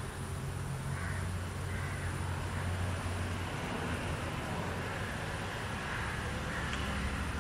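A steady low hum, like a distant engine, under a faint hiss of outdoor background noise.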